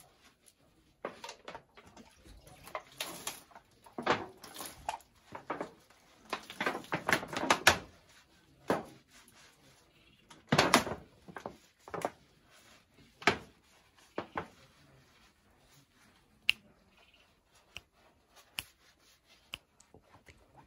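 Irregular splashes of water and rubbing as a person scoops water from a bucket and washes and scrubs her legs, in bursts with short quiet gaps; the busiest stretch is a few seconds in.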